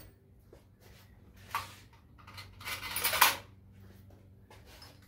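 Small metal parts and tools clinking and clattering on a metal workbench: a short knock about one and a half seconds in, then a longer rattle of clinks, the loudest, around three seconds in.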